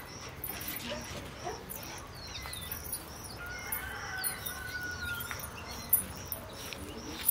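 A dog whimpering a few times, with birds chirping. A couple of sharp knocks come near the end.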